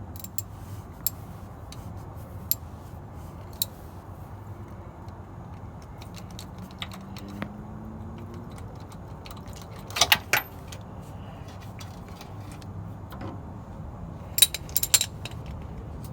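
Scattered metallic clinks and clicks of hand tools: a deep socket and ratchet being worked on a truck's oil pressure switch. There is a cluster of sharp clinks about ten seconds in and another near the end.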